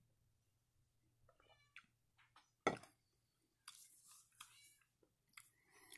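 Faint, high-pitched meow-like cries a few times, with one sharp click about two and a half seconds in.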